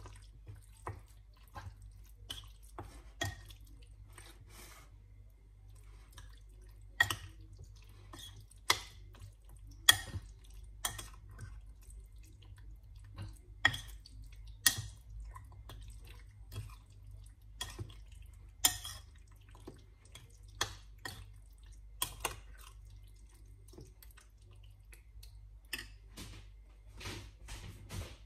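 Metal spoon stirring chicken pieces in a yogurt marinade in a glass bowl, clinking against the glass in irregular sharp clinks, a few much louder than the rest, over a low steady hum.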